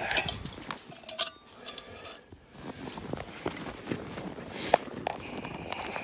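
Metal tools clinking in a tackle bag as it is rummaged for pliers, with a few sharp clinks in the first couple of seconds, then footsteps in snow.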